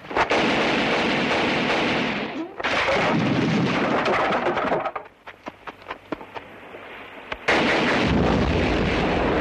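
Film gunfight sound effects: three long stretches of dense, continuous gunfire, separated by a quieter gap about five seconds in that holds scattered single shots.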